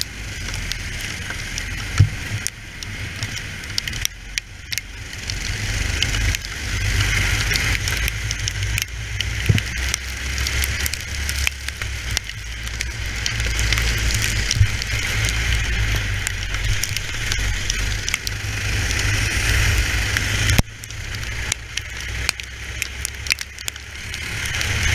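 Racing kart engine heard onboard, running under throttle with the level easing off about four seconds in and again about twenty-one seconds in before building back up. Wind rush on the microphone and scattered sharp clicks run over it.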